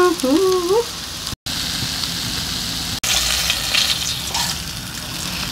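Small whole vobla (Caspian roach), salted and floured, frying in hot oil in a pan: a steady sizzle, with a short dropout about a second and a half in.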